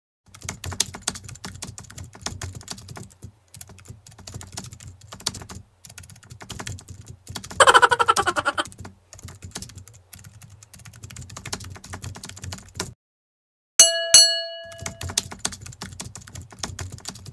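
Typing sound effect: rapid computer-keyboard key clicks, with a denser, louder run of keystrokes about eight seconds in. After a short pause, two bright bell-like dings ring about fourteen seconds in, then the typing resumes.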